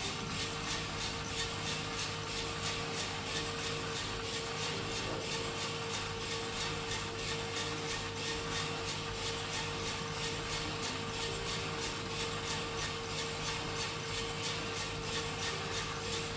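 Skywalker drum coffee roaster running early in the roast, before first crack: its drum turning with the beans tumbling inside and its fan blowing. A steady whir with a constant hum.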